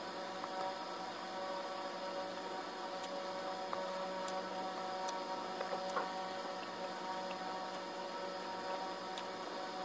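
A steady electrical hum made of several fixed tones, with a few faint clicks over it as rice is eaten by hand.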